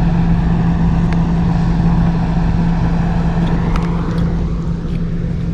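Steady machine drone with a strong low hum, engine-like, with a couple of faint clicks.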